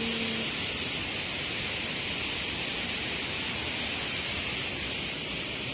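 Steady rushing hiss of water pouring over a dam spillway, even and unbroken throughout.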